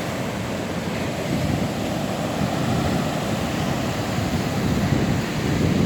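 Heavy sea surf crashing and washing against coastal rocks, a continuous rushing roar that swells slightly toward the middle, with wind buffeting the microphone.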